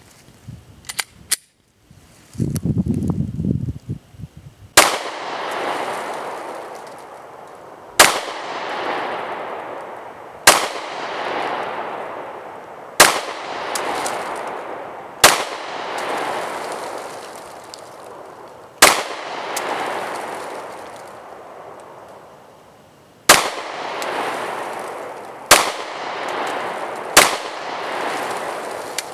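Nine shots from a Glock 26 Gen 4 9mm pistol, fired one at a time a few seconds apart, the first about five seconds in. Each shot has a long fading tail. Before the first shot there are a few small clicks and a low rumble.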